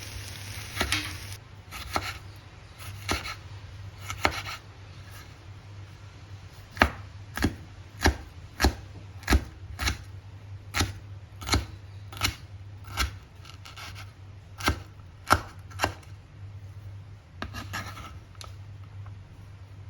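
Knife chopping on a cutting board: single sharp strokes a little over half a second apart, loudest through the middle of the stretch, with softer strokes at the start and near the end.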